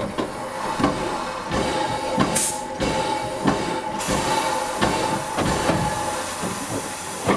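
Small steam locomotive moving slowly while shunting, with a knock about every two-thirds of a second and a thin steady tone through the middle. A short sharp hiss of steam comes about two and a half seconds in, and steam hisses more widely from about four seconds on.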